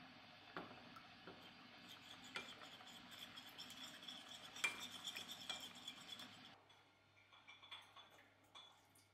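A metal spoon stirring and scraping around a small ceramic bowl, with light clinks against the sides. The stirring stops about six and a half seconds in, leaving a few faint knocks.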